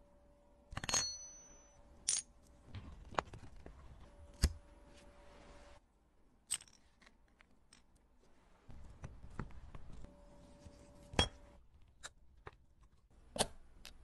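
Small steel watch parts, a case back and a crystal in its bezel ring, clicking and clinking at irregular intervals as they are handled and set down on a hard surface. The first clink, about a second in, rings briefly.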